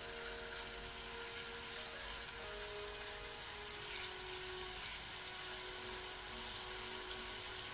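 Veal pieces sizzling in hot oil and butter in a cast-iron kazan: a steady frying hiss while more meat goes in and is stirred with a wooden spoon.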